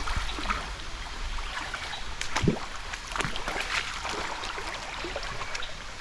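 Stream water flowing over rocks, with irregular splashes and knocks.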